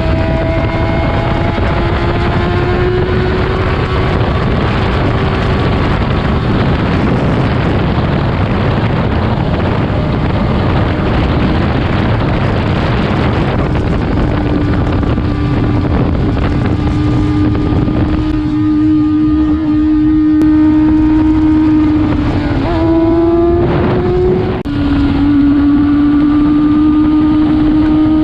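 Kawasaki ZX-6R sportbike's inline-four engine running at high, steady revs on track, under heavy wind rush on the microphone. Near the end the pitch climbs, cuts out for a moment and comes back slightly lower, as at an upshift.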